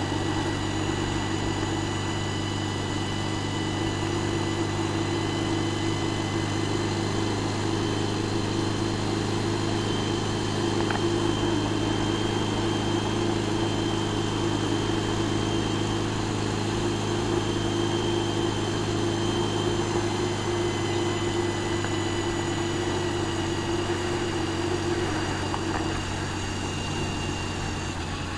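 Motorcycle engine running at a steady cruising speed, heard on board the moving bike. It is a constant low drone with a thin steady whine above it, over wind and road noise.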